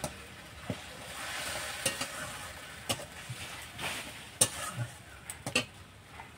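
Ground spice paste sizzling and frying in oil in a stainless steel kadai as a spatula stirs and scrapes it, with a few sharp clinks of the spatula against the pan. This is the masala being fried down (koshano) for a curry.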